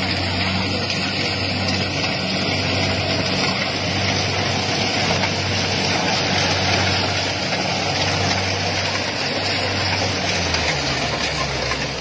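Kubota rice combine harvester running and working through the crop: a steady low diesel engine hum under the dense whirr of its cutting and threshing gear. About ten seconds in the engine note wavers and drops lower.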